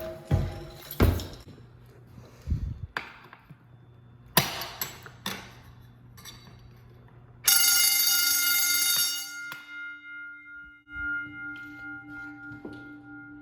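A few scattered knocks, then about seven and a half seconds in a sudden loud metallic ringing that lasts about two seconds; its tones keep sounding and fade away over the next few seconds.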